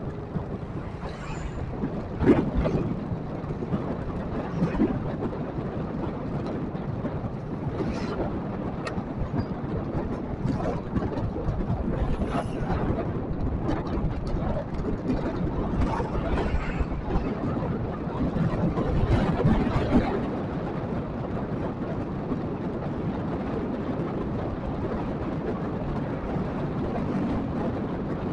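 Steady road and engine noise from a vehicle driving along a town street, with other traffic passing now and then. A louder swell comes about two-thirds of the way through.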